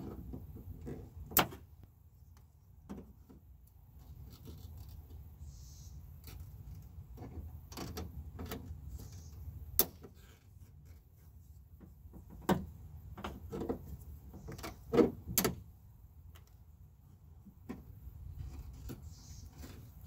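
Scattered clicks and knocks of lock rods, clips and the metal door shell being handled inside a 2012 Nissan Frontier door, the sharpest about a second in, near ten seconds, and a cluster between about twelve and fifteen seconds, over a steady low rumble.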